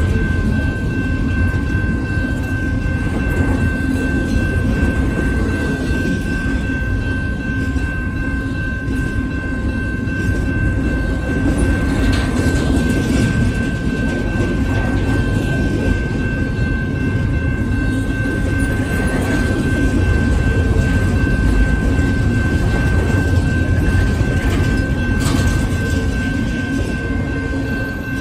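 Double-stack intermodal well cars rolling past close by: a steady rumble of steel wheels on rail with occasional clanks. Over it, a grade-crossing bell keeps up a constant high ringing tone.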